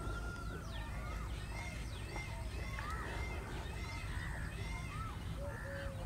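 Several wild birds calling at once: repeated whistles that swoop up and down and short falling chirps, over a steady low rumble.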